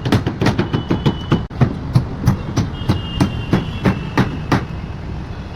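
Hammering at a building site: rapid, irregular knocks about three to four a second over a low rumble, with a thin metallic ringing at times and a brief break about one and a half seconds in.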